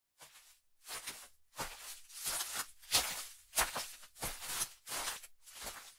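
Footstep sound effect: about nine evenly paced steps, each a noisy scuff with a soft low thud, growing louder over the first few seconds.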